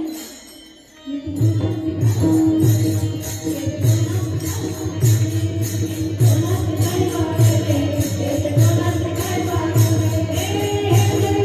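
Devotional kirtan music. After a short lull about a second in, small hand cymbals (taal) clash in a steady beat over a drum, and singing joins partway through.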